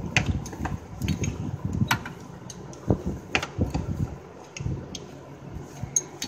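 A socket tool on an extension working a stubborn mounting bolt of the AC compressor: irregular metal clicks and sharp knocks, with scraping from gloved hands. The loudest strikes come about three seconds in and again near the end.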